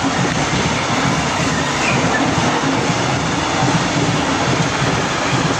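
A freight train of open wagons rolling past close by: the steady, loud rumble and clatter of steel wheels on the rails.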